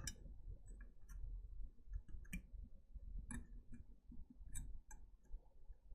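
Faint, irregular small clicks and ticks of a circuit board and plastic housing being pressed and fitted together by hand.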